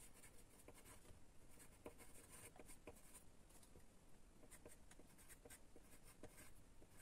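Pencil writing on paper: faint, irregular scratching strokes.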